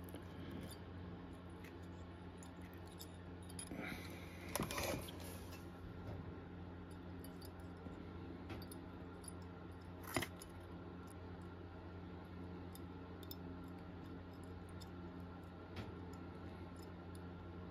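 Pliers straightening the metal pins of a pinball plasma display: a few faint, scattered metallic clicks and taps, the sharpest about ten seconds in, over a steady low hum.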